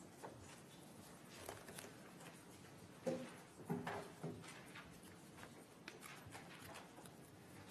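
Quiet room tone with a few faint clicks, and a short cluster of louder, pitched sounds about three to four seconds in.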